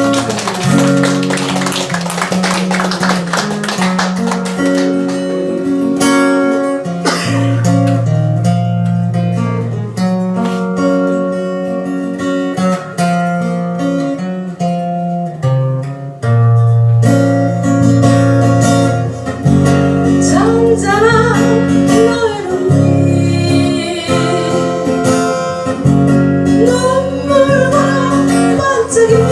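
Music: acoustic guitar playing steady chords and bass notes, with a voice singing over it in the last third.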